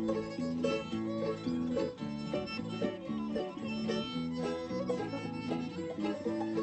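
Acoustic bluegrass instrumental break: banjo and guitar picking over a steady alternating bass rhythm, with no singing.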